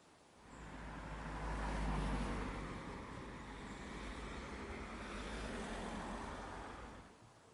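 A car passing on a road: engine and tyre noise that swells about half a second in, peaks around two seconds, stays up, and then cuts off suddenly near the end.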